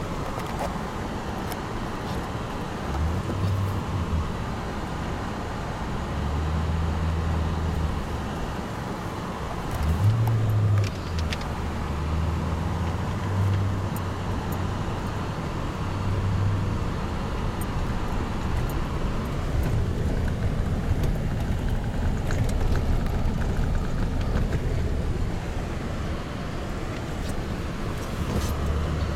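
Car driving slowly over a snow-packed, rutted road, heard from inside the cabin: a steady low rumble of engine and tyres, with a brief knock about ten seconds in.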